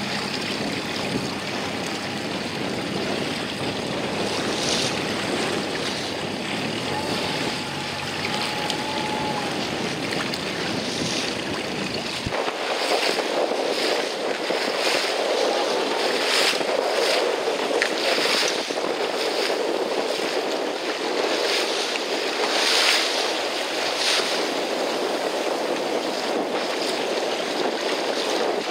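Wind on the microphone over the wash and slap of choppy sea water around a small boat. About twelve seconds in, the low rumble stops abruptly and the sound turns to a hissier wash with gusty bursts.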